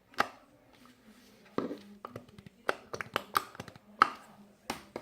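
Homemade slime being worked by hand with lotion mixed in, giving an irregular series of sharp wet clicks and pops.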